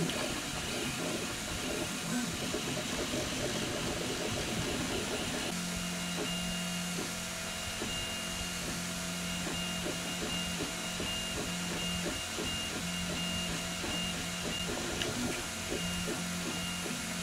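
FDM 3D printer printing a plastic gear: its stepper motors whine in steady tones that cut out and resume every second or so as the print head changes moves, over a steady hiss. For the first few seconds the motor noise is a busier, quickly changing chatter.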